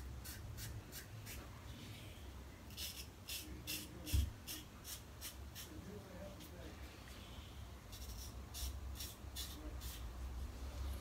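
Gem Micromatic single-edge safety razor scraping over a lathered scalp in short runs of quick, rasping strokes, a finishing touch-up pass at the end of a head shave. A low thump about four seconds in.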